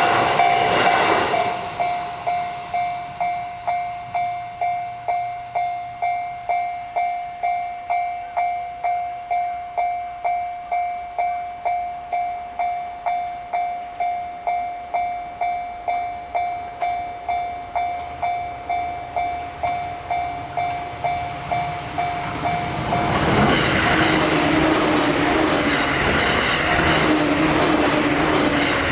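Japanese railroad crossing warning bell ringing in a steady 'kan-kan' rhythm, about two strikes a second. A train is finishing its pass over the crossing in the first second or so, and about 23 seconds in another train passes, its wheel and track noise covering the bell.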